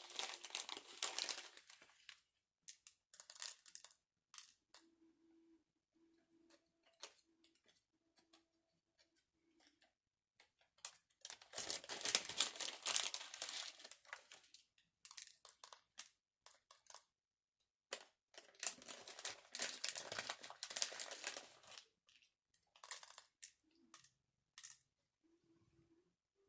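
Plastic packaging crinkling and rustling in several separate bursts, the longest lasting two to three seconds, with quiet stretches between them.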